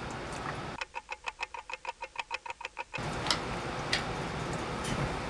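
Fast, even clock-like ticking, about seven ticks a second, for about two seconds starting near the second mark, then faint room hiss with a couple of light knocks.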